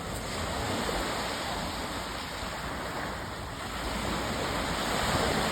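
Sea waves washing in, a steady rush that swells about a second in and again near the end.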